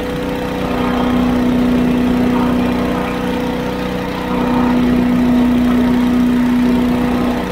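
The small engine and fan of an 8 hp Little Wonder leaf blower running steadily at a fixed throttle, mixed with a compact tractor's engine as the tractor drives. The steady note swells a little twice.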